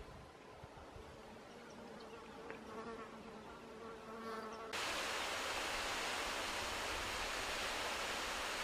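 A faint insect hum for the first half. About halfway through, a loud, steady hiss cuts in abruptly and holds until it ends suddenly.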